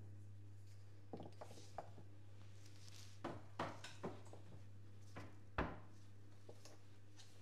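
Light knocks and clicks of kitchen items being handled and set down on a counter, scattered over a few seconds, the loudest a single knock about five and a half seconds in, over a steady low hum.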